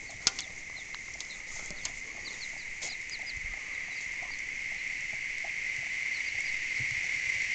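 Domestic chicks peeping in short, high cheeps around their hen, over a steady high insect drone that grows louder toward the end. One sharp click comes a moment in.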